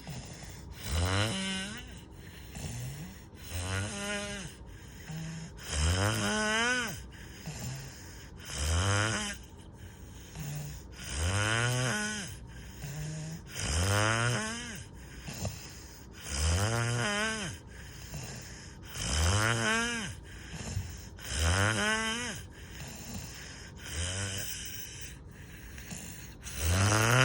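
Loud snoring, a snore about every two and a half seconds, each a rough low rattle with a whistling tone that sweeps up in pitch and falls away.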